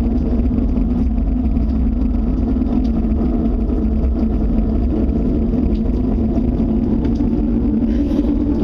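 A loud, steady low rumble with a droning hum that goes on without let-up, a mysterious outdoor noise the listener fears may be a tornado.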